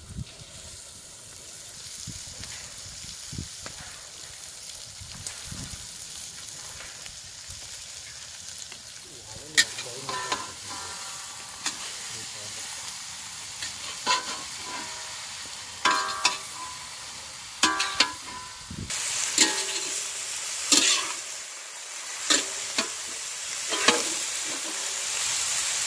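Shredded cabbage sizzling in hot oil in a large iron kadai, the hiss growing louder as the pan heats up. From about ten seconds in, a long metal ladle stirs it, scraping and clanking against the iron pan every second or two.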